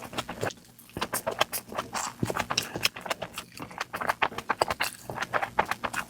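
Close-up eating sounds: crisp food being bitten and chewed, a quick, irregular run of sharp crunches and crackles, several a second.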